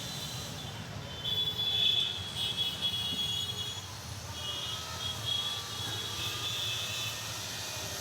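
Road traffic: a steady low rumble of vehicle engines, with thin high-pitched tones sounding on and off from about one second in to about six seconds in.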